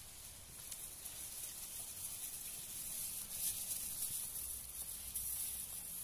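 Steady hiss of cooking on a gas stove: a wok of spiced broth with chunks of meat heating over the burner, with a few faint clicks.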